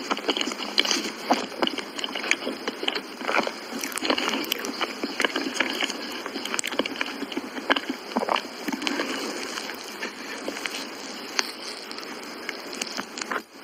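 Close-miked mouth sounds of someone eating soft crepe cake: wet chewing with many small clicks.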